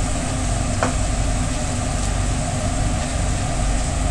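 Philly steak meat and peppers sizzling on a food truck's flat-top griddle over a steady low mechanical drone, with a single short clink about a second in.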